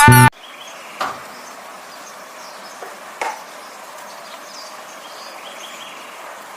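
Background music cuts off just after the start, giving way to steady low background noise. Two short knocks come through, about one second and three seconds in.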